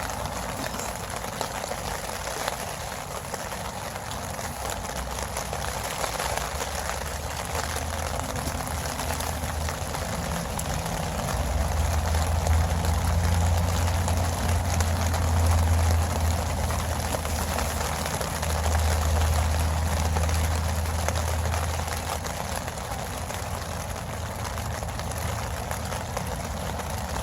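Steady heavy rain falling, with a deep low rumble that swells up twice: once about twelve seconds in and again around nineteen seconds.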